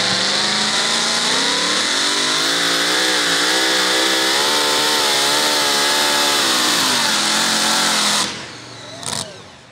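Supercharged V8 engine of a super modified two-wheel-drive pulling truck at full throttle, pulling a weight-transfer sled. Its pitch rises, wavers up and down, then falls before the sound cuts off abruptly about eight seconds in.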